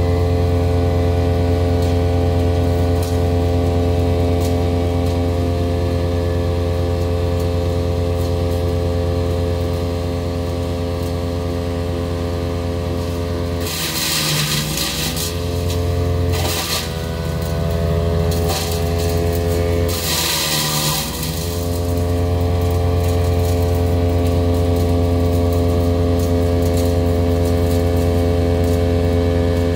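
Big Bear Power BBC-62 wood chipper's engine running steadily. Around the middle it chips three loads in about eight seconds: each time a loud, noisy chipping burst comes in and the engine pitch dips briefly under the load, then recovers.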